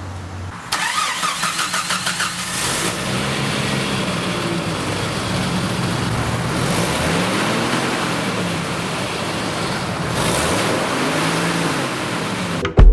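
1992 Jeep Wrangler YJ's 4.0-litre straight-six cranking on the starter for about two seconds, then catching and running, revved up and back down three times.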